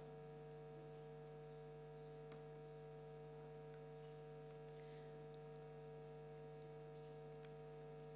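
Near silence with a steady electrical hum of several fixed tones and a few faint clicks.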